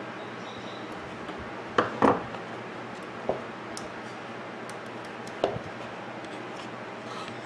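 Short hard knocks and clicks of plastic and small metal parts handled inside a blender's plastic motor base: a close pair about two seconds in, then single knocks about three seconds and five and a half seconds in, over a faint steady hiss.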